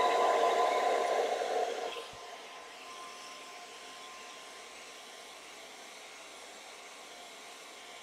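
Handheld ionic hair dryer running: rushing air with a steady thin motor whine. About two seconds in it drops noticeably in loudness and runs on steady and quieter.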